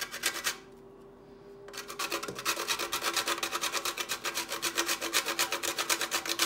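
Whole nutmeg being grated on a flat metal hand grater: a fast, even run of rasping strokes, which stops for about a second shortly after the start and then starts again.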